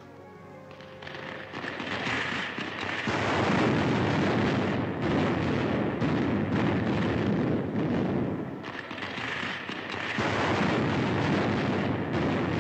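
Rocket ship sound effect for a stratosled taking off: a loud, rough rushing noise full of rapid irregular crackle. It builds over the first three seconds, eases briefly about two-thirds of the way through, then comes back up.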